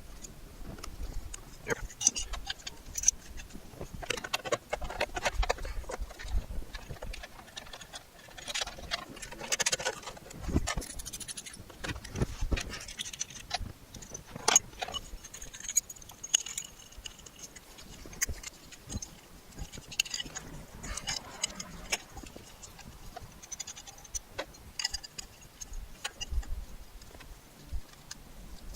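Irregular small clicks, taps and light metallic rattling of tools and hardware being handled, with no steady rhythm.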